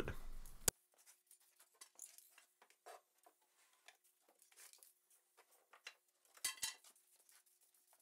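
Faint, scattered light taps and clinks from steel coat-rack hooks being handled while a finish is brushed on, with a short louder knock about six and a half seconds in.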